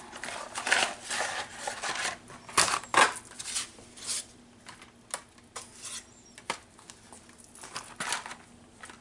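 Dry, brittle oven-ready lasagna sheets clicking and clattering against each other and their cardboard box as they are pulled out and handled, with the box rustling. Sharp taps come irregularly throughout, loudest a few seconds in.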